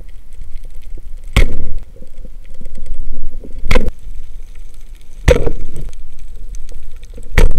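Four loud, sharp cracks roughly two seconds apart over a steady low rumble.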